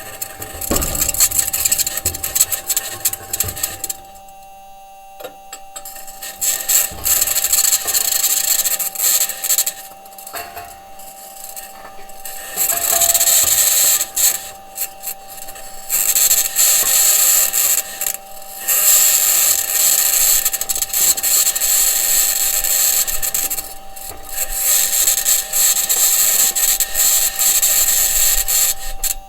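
Perseverance Mars rover driving, heard through its entry, descent and landing microphone: a high-pitched scratching that comes and goes in stretches of a few seconds, over a steady tone and the low noise of the wheels and suspension on the ground. The scratching may be electromagnetic interference from one of the rover's electronics boxes, or its mobility system rubbing on the surface.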